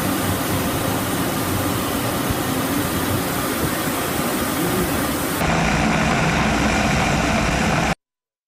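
Steady engine drone and rushing airflow heard from inside an aircraft in flight. About five seconds in the sound changes abruptly to a duller, bassier version, and it cuts off sharply near the end.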